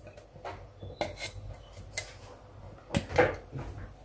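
Light clinks and knocks of a blender cup against a ceramic mixing bowl as blended mango purée is poured and scraped out into it. The strongest knocks come about three seconds in.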